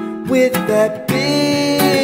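Acoustic guitar strummed under a man's singing voice, which holds a long, wavering note through the second half.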